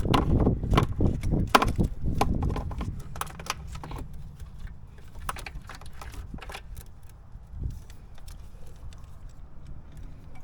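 Hands working a plastic purge valve solenoid and its hose into place in a car's engine bay: a quick run of clicks, taps and rattles over the first few seconds, thinning to scattered faint clicks, over a steady low rumble.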